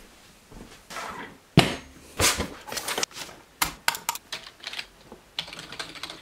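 Computer keyboard typing and mouse clicking in irregular bursts of sharp clicks, with quick rattling keystrokes near the end. A single heavy knock about a second and a half in is the loudest sound.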